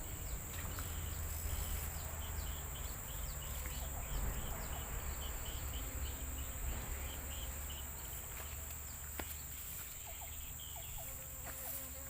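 Outdoor insect sounds: a steady high-pitched buzz with a run of quick repeated chirps, over a low rumble.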